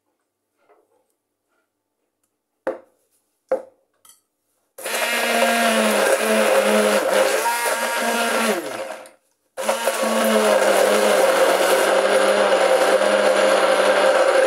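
Hand-held stick blender chopping dried lemongrass in a tall plastic beaker. After two short knocks, the motor starts about five seconds in, runs for about four seconds, its pitch sagging as it slows, stops briefly, then starts again and runs steadily.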